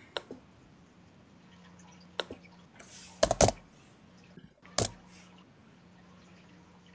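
A few scattered clicks and knocks over quiet room tone with a faint steady hum; the loudest are a pair of knocks about three and a half seconds in and another just before five seconds.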